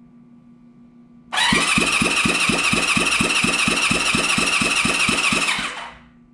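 Electric starter cranking a 1978 Honda CB550 inline-four engine over for about four seconds, a high starter whine with an even pulse of about five beats a second, starting about a second in and stopping near the end. The engine is being cranked for a compression test on cylinder one.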